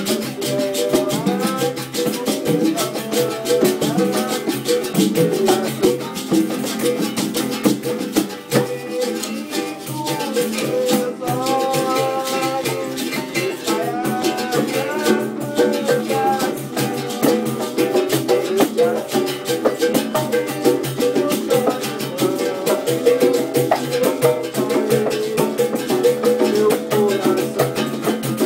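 Live acoustic Brazilian jam: berimbau, congas and acoustic guitar playing together in a steady rhythmic groove, with a rattling percussion part.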